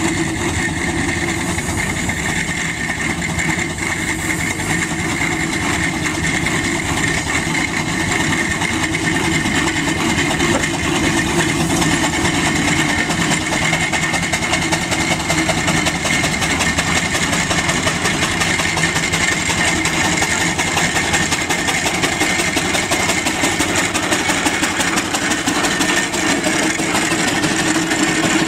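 Steam road roller and steam traction engine working at walking pace, hauling a railway wagon on a low-loader: a steady mechanical running sound throughout.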